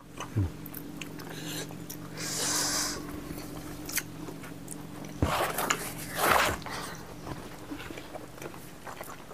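Chewing and mouth sounds of people eating rice and pork with their fingers, with two louder bursts about five and six seconds in, over a faint steady hum.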